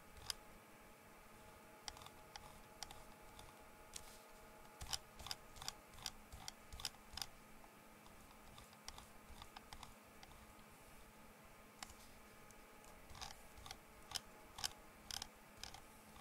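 Scattered sharp clicks from computer controls, in short runs of a few clicks at a time, over a faint steady electrical hum.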